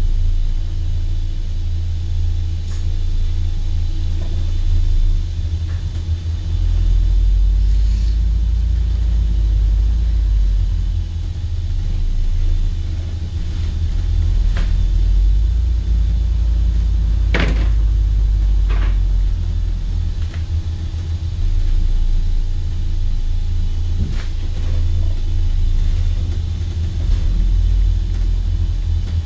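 Steady low rumble of a moving bus heard from inside the cabin, with a few short rattles or knocks from the bodywork, the sharpest about 17 seconds in.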